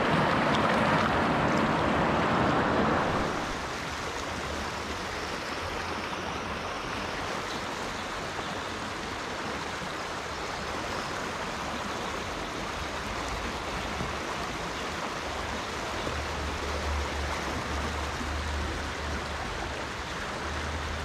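Shallow rocky stream rushing over boulders, loud and close for about the first three seconds, then a steadier, quieter flow for the rest.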